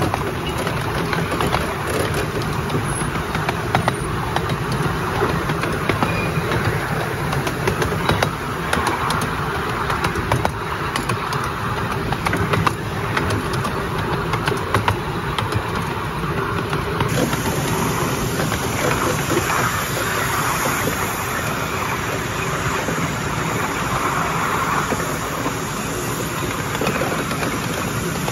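10¼-inch gauge Bullock Pacific steam locomotive running steadily with its passenger train, heard from the carriage behind it: continuous running noise of the engine and wheels on the rails, with scattered short clicks and rattles.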